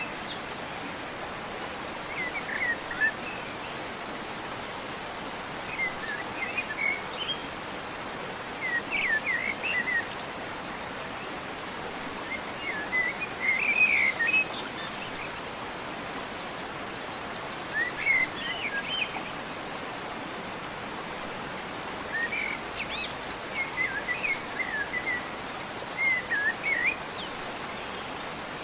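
Small birds calling in short chirping, twittering phrases every few seconds over a steady background hiss.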